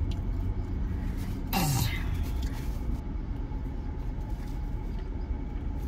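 Steady low hum of an idling car heard inside its cabin. About one and a half seconds in there is a short throat-clearing sound from one of the people in the seats, its pitch falling.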